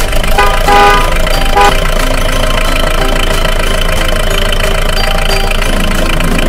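Motor vehicle engine sound effect running steadily, with a short horn-like toot early in the sound.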